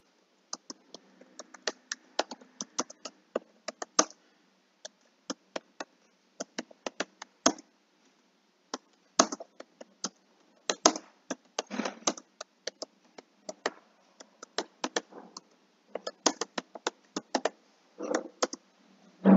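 Typing on a computer keyboard: quick, irregular runs of key clicks with short pauses between words, ending in a louder, duller knock.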